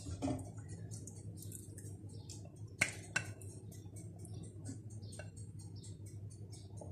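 Marinated chicken leg pieces in a thick, wet marinade sliding out of a ceramic bowl into a nonstick frying pan: faint soft ticks and slithering, with two sharp clicks about three seconds in, over a steady low hum.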